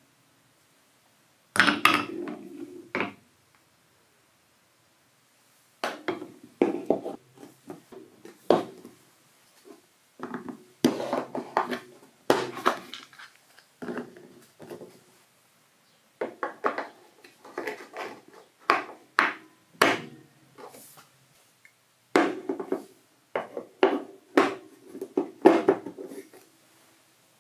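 Marbles rolling down plastic TrixTrack wave-slope marble-run track, clattering over the steps in rapid clicks and knocks. The clatter comes in five runs of a few seconds each, separated by short silences.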